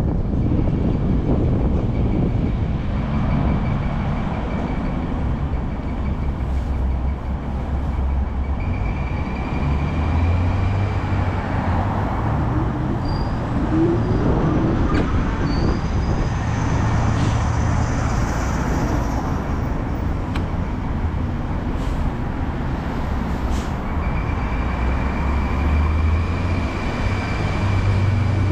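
Ride noise from a handlebar-mounted camera on a moving bike in city traffic: a steady rumble of wind and tyres on the wet road, with a thin whine that comes and goes and a few faint squeaks about halfway through.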